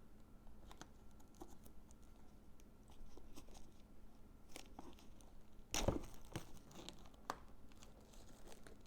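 Handling of Pokémon card box packaging: plastic wrap crinkling and tearing, with scattered small clicks and a louder rustle about six seconds in.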